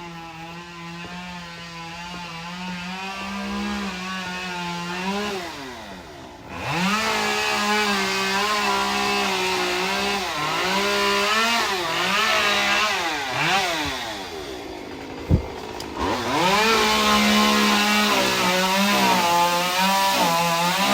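Two-stroke chainsaw cutting, its engine revving up and down repeatedly and dropping off briefly twice before speeding up again. A single sharp knock sounds about 15 seconds in.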